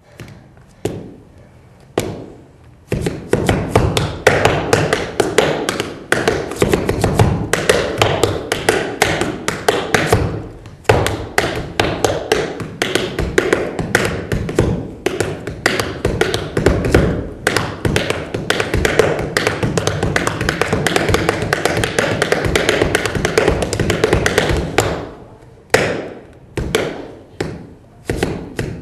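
Tap shoes striking a hard floor in a tap dance: a few separate taps at first, then a long run of rapid, dense tapping, thinning out to spaced single taps near the end.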